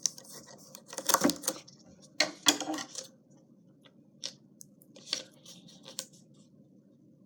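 Scissors snipping and tape and paper being handled: two short bursts of crisp snips and crackles about a second in and near the middle, then a few lighter clicks, over a faint steady hum.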